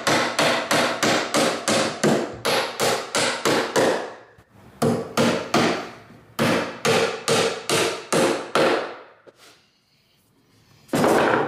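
Claw hammer driving nails through a metal joist hanger into a wood joist, with rapid blows about three or four a second. The blows come in three runs with brief pauses, stop about nine seconds in, and one more loud knock comes near the end.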